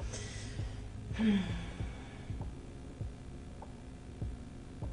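A woman breathes in and then lets out a sigh about a second in, breathy with a brief low voiced tone. A steady low hum and a few faint clicks sit underneath.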